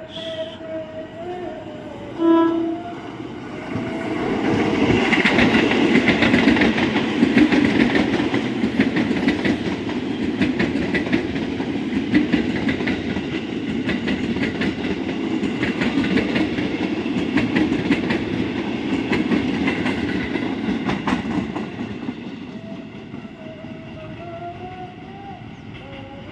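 JR 205 series KRL electric multiple unit gives a short horn blast about two seconds in, then passes close by at speed. Its wheels rumble and clatter over the rail joints for about eighteen seconds before the sound fades.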